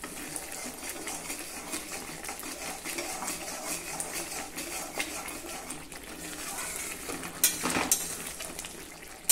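A ladle stirring thick, bubbling mustard-greens saag in a pan, scraping and clinking against the pan as sprinkled rice flour is mixed in to thicken it. Two sharper knocks come about seven and a half seconds in.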